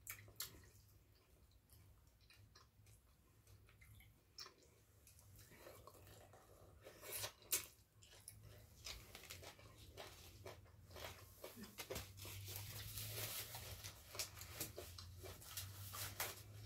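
Faint close-up eating sounds: a person chewing and crunching food, with scattered small mouth clicks and one sharper click partway through.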